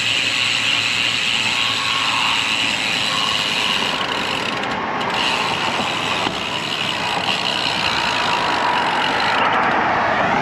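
Steady road traffic noise with trucks and engines, heard from a moving bicycle.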